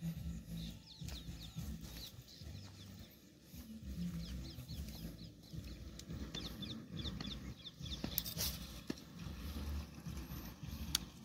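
Birds calling, with many short repeated chirps that grow thicker in the second half, over a low rumble, and a single sharp click near the end.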